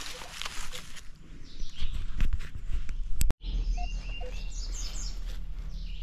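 Footsteps outdoors for about three seconds, then an abrupt break and birds chirping in short calls over a steady low rumble.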